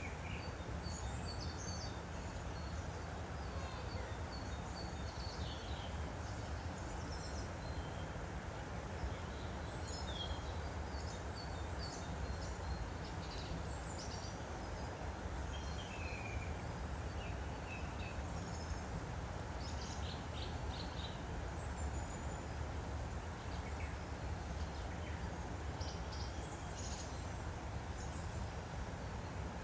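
A woodland stream flowing steadily, with songbirds chirping and whistling in short calls over it.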